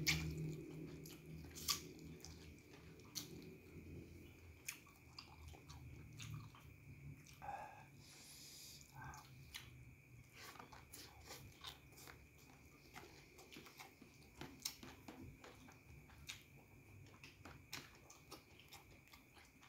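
A person chewing a mouthful of rice and dry noodles, eaten by hand, close to the microphone, with many short sharp mouth clicks and smacks scattered through. A faint steady high whine sits underneath.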